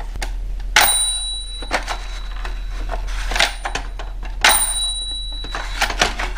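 Small bell of a toy cash register dinging twice, each ding starting with a sharp click as the mechanism trips and ringing for about a second, the two about three and a half seconds apart. Lighter plastic clicks and handling sounds fall in between.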